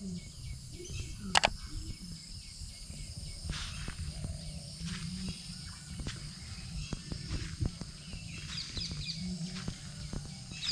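Outdoor ambience: a steady drone of insects over a low rumble, with a couple of sharp clicks about a second in and short bird chirps near the end.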